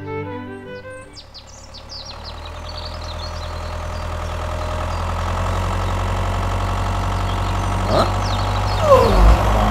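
An engine idling with a steady low hum, fading up over the first few seconds and then holding even. Birds chirp briefly early on, and a couple of short falling squeals come near the end.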